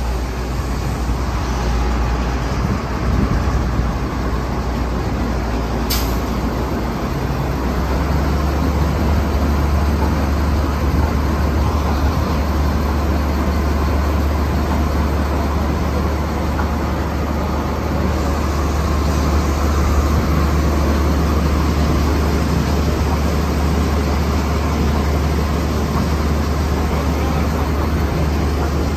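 Water well drilling rig's engine and power unit running steadily on test, a loud drone with a deep low hum. A short sharp click sounds about six seconds in.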